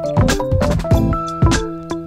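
Upbeat outro music: drum hits about twice a second under a plucked or keyboard melody.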